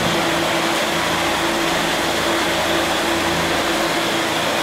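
Steady machine whir with a constant low hum, unchanging throughout.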